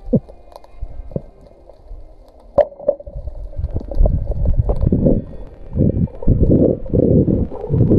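Underwater sound picked up through an action-camera housing: a few faint clicks and knocks, then from about four seconds in a loud, pulsing rush of water and bubbling as the freediver swims.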